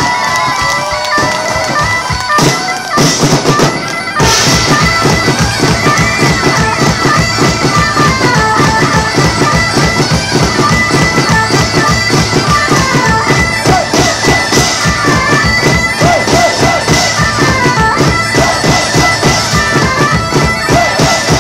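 Live bagpipe band music: several bagpipes play a stepping melody over their steady drone, amplified through a PA. A fast, even drum beat kicks in a few seconds in and drives on beneath the pipes.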